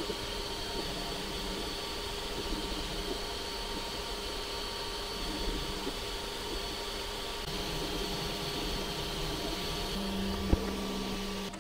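FDM 3D printer at work: the steady whir of its cooling fans, with the fixed whine of its stepper motors. About ten seconds in a low steady hum joins, and a single click follows shortly after.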